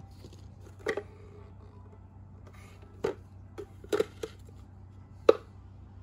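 Hard plastic parts of a cordless handheld vacuum cleaner clicking and knocking together as they are handled: one knock about a second in, a cluster of knocks from about three to four and a half seconds in, and the loudest knock near the end, over a low steady hum.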